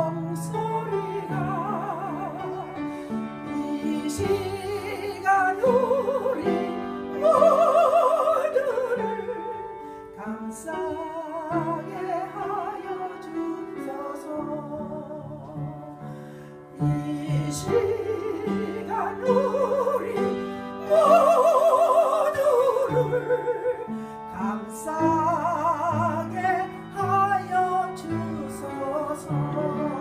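A woman singing a slow song solo into a microphone with wide vibrato, over a keyboard accompaniment. Her loudest, long held notes come twice, about a quarter of the way in and again about two-thirds in.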